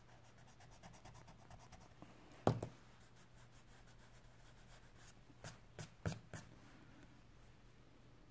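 Faint scratching of a pencil-like tool working over charcoal on sketchbook paper, picking out a highlight. A single knock comes about two and a half seconds in, and a quick run of light taps follows a few seconds later.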